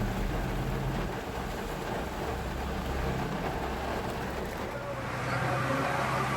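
Vehicle engines running on a waterlogged street, with a steady hiss of rain and water beneath them.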